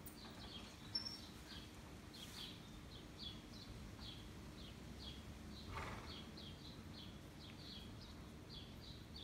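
A roosting colony of big brown bats giving faint, high chittering calls: short squeaks that slide down in pitch, a few a second, without a break.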